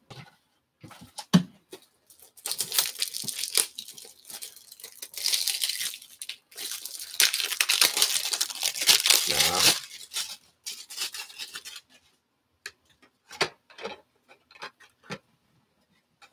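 A Topps Tribute trading-card pack's wrapper being torn open and crinkled for several seconds, followed by a few light clicks and taps as the cards are handled.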